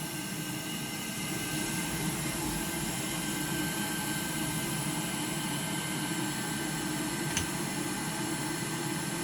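Steady whirr of a small electric fan with a thin, even whine, and a single sharp click about seven seconds in.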